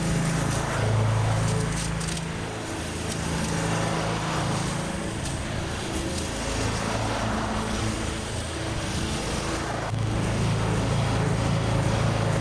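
Walk-behind rotary lawn mower's engine running steadily as it is pushed across the lawn, cutting grass. It grows louder near the end as the mower comes toward the camera.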